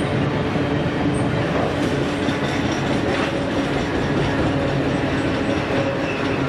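BNSF double-stack container train's well cars rolling steadily past on a curve, steel wheels running on the rail. Faint thin squealing tones come in now and then.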